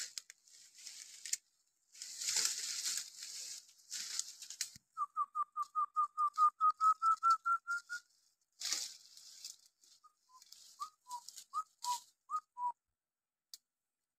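A run of about fourteen short whistled notes, quick and evenly spaced and rising slightly in pitch, followed a couple of seconds later by a few scattered two-note whistles. Leaves and undergrowth rustle, loudest early on and again in the second half.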